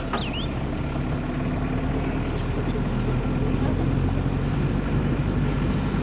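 Steady engine and road noise of a vehicle driving, heard from on board, with a low engine hum throughout.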